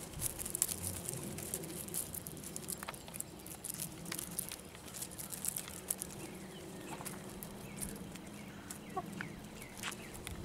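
Backyard hens clucking now and then while they peck june bugs off bare dirt, with many quick clicks scattered through and a low steady hum underneath.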